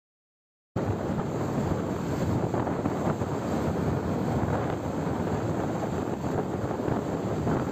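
Wind buffeting the microphone of a moving vehicle, mixed with road noise, as a steady rushing rumble. The sound drops out to complete silence for the first second and then resumes.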